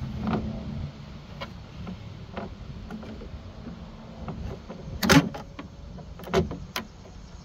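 Scattered clicks and knocks of needle-nose pliers working the plastic handle-release rod clip on a 2016 Ford F-150's tailgate latch mechanism, the loudest about five seconds in.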